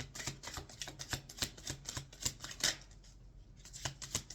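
A tarot deck being shuffled by hand: a quick run of card slaps, about five a second, pausing briefly near the three-second mark before starting again.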